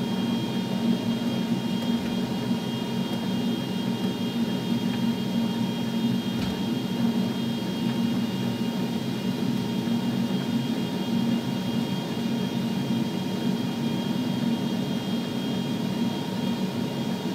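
Bombardier CRJ 700's right engine, a GE CF34-8C turbofan, heard from the flight deck as it accelerates after light-off during its start, before starter cutout. It is a steady whir with a constant low hum and several thin high whining tones.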